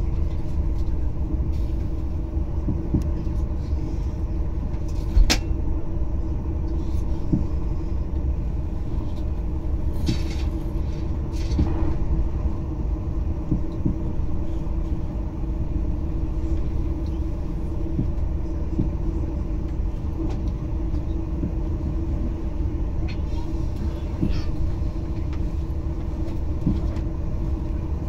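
Cabin noise of a TGV high-speed train running along the line: a steady low rumble from the running gear with a constant hum over it. There are a few light clicks and one sharper knock about five seconds in.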